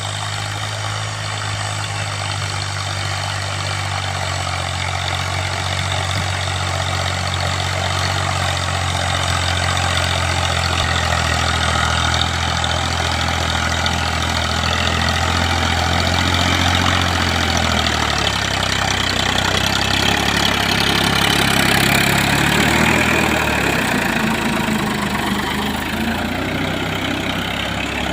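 Tractor engine running steadily, its low note dropping in pitch about two-thirds of the way through while a hiss builds beneath it.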